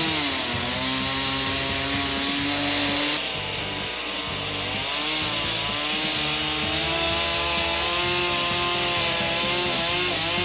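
Chainsaw cutting a notch into a peeled log, running at high revs with its engine pitch wavering up and down through the cut.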